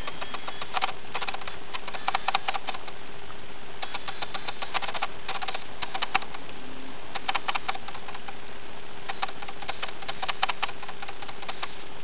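Meerkats playfighting: bursts of rapid scratchy clicks every second or two over a steady faint hum.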